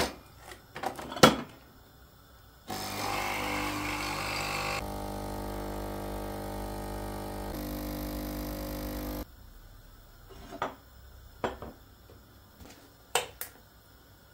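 A De'Longhi Nespresso capsule machine's pump running steadily for about six and a half seconds while it brews coffee into a glass cup, changing tone partway through. It is preceded by a few clicks and knocks at the machine and followed by light knocks of a ceramic mug being handled and set down.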